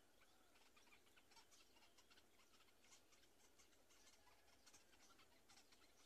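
Near silence with faint, scattered ticks and rustles from the black-winged kite's twig nest as the adult tears at prey.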